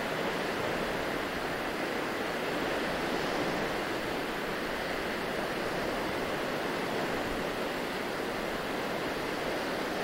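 Small waves washing onto a sandy shore: a steady hiss of surf with no single breaker standing out.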